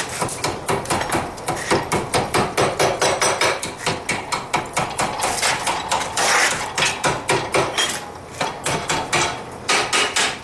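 Hand hammer striking a red-hot quarter-inch square steel bar, bending it around a 1.5-inch steel mandrel held in a vise. Quick steady blows come about three a second, with a short break near the end.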